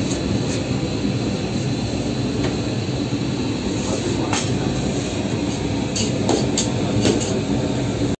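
Steady loud rumble and hum of running bakery equipment, with a handful of sharp clicks and taps from work at the clay tandoor oven, several close together about six to seven seconds in.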